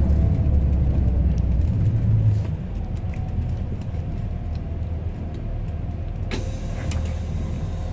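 School bus engine running, heard from inside the cabin; its low drone drops off about two and a half seconds in as the bus eases off. Near the end a sudden hiss of air sets in and keeps going.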